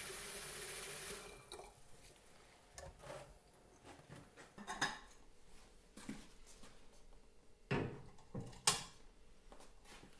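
Tap water running into an enamel kettle, turned off about a second in. Then a few separate clinks and knocks of the kettle and kitchenware being handled, the loudest two near the end.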